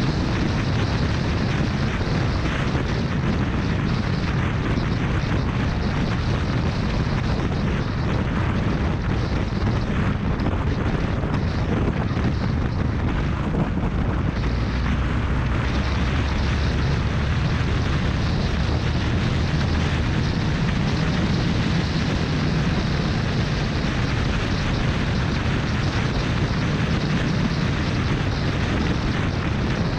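Steady wind buffeting on an action camera's microphone at highway speed, with motorcycle engine and tyre noise underneath.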